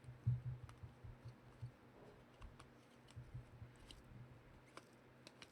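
Faint, scattered light clicks and taps over a low steady hum.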